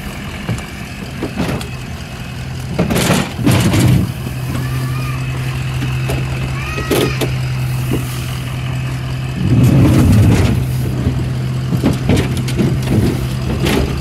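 Pickup truck engine idling steadily, with loud bumps and rustling about three seconds and ten seconds in as gear is handled in the truck bed.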